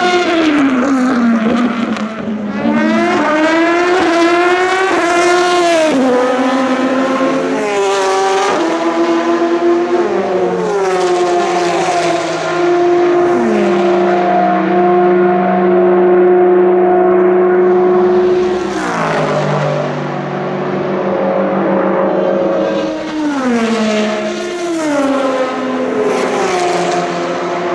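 Endurance race cars, Le Mans prototypes and Porsche GT cars, at full throttle. One passes close at the start with its engine note dropping. Then several accelerate away together, their notes rising and falling back at each upshift, with long steady stretches at speed.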